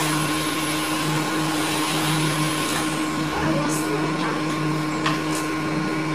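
Steady motor hum with a constant hiss from a running electric appliance. A few brief rustles of a plastic bag and fabric being handled come about three and a half and five seconds in.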